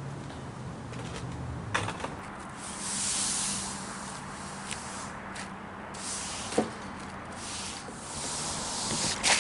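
Push broom sweeping rainwater across wet pavement, in drawn-out wet swishing strokes, with a few sharp knocks in between.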